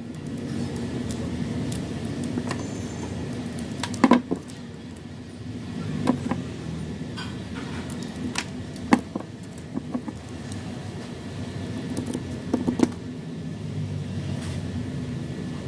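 Scissors snipping through wooden ice cream sticks, cutting the stick ends round: a series of sharp, irregularly spaced snaps, the loudest about four seconds in, over a steady low hum.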